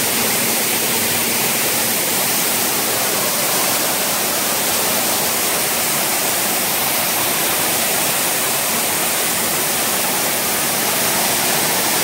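Steady rushing of a waterfall inside a rock cave, an even wash of water noise that does not change.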